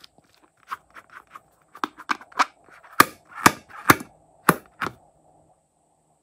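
A filled rubber balloon being handled, giving a run of sharp clicks and taps: a few soft ones at first, then five loud ones in quick succession about three seconds in, stopping at about five seconds.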